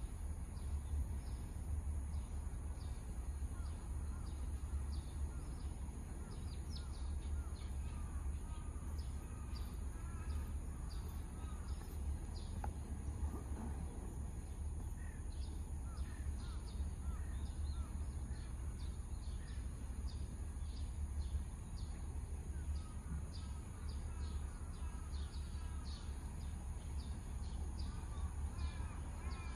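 Outdoor ambience: a steady low rumble, with birds calling and chirping on and off through it.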